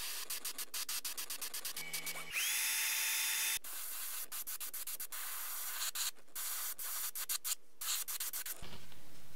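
Gravity-feed airbrush spraying paint, its hiss cut into many short, quick bursts as the trigger is feathered. About two and a half seconds in there is one longer, steadier spray with a faint whistle, and near the end the spray runs steadily again.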